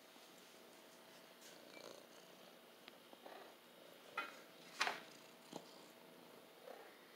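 Domestic cat purring softly, with a few short, louder rustles as its fur rubs against the microphone, the loudest just before five seconds in.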